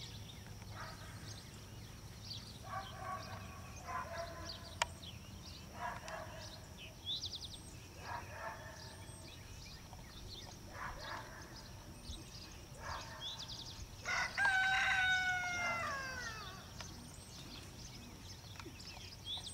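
A rooster crows once, a long call that falls in pitch at its end, about three-quarters of the way in. Shorter calls come every couple of seconds before it.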